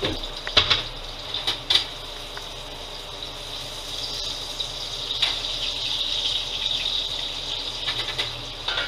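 Meat frying in hot oil in a pan on an electric stove: a steady sizzle that swells a little mid-way, with a few sharp knocks and clicks of cookware against the pan.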